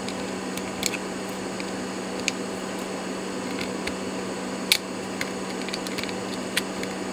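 Small, sharp clicks and taps of tweezers against the tiny metal and plastic parts of a cassette Walkman's tape mechanism, a handful spread out with the sharpest about two-thirds of the way in, over a steady low hum.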